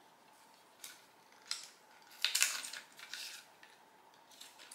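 Handling noise from a small accessory pack being opened by hand: a handful of short, quiet rustles and scrapes of packaging, the loudest about two and a half seconds in.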